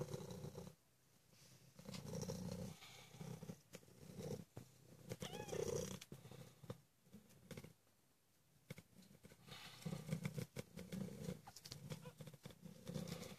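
Maine Coon cat purring softly in repeated phrases with short pauses between breaths, beside her ten-day-old kittens. A brief high mew comes about halfway through.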